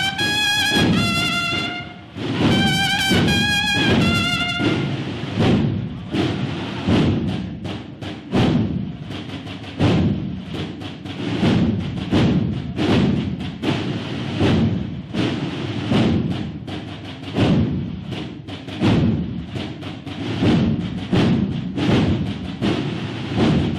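Processional march played by a brass band with drums. A high brass phrase of held notes opens it over the first few seconds, then a steady drum beat carries on under the low brass.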